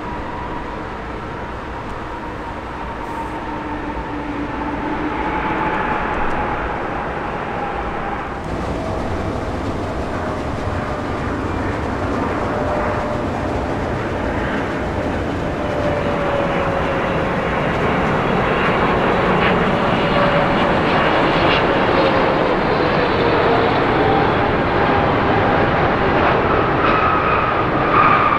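Boeing 777 jet engines passing, a steady roar with a whine sliding down in pitch. About eight seconds in it cuts to a Boeing 777-300ER with GE90-115B engines, which grows louder as its whine also falls.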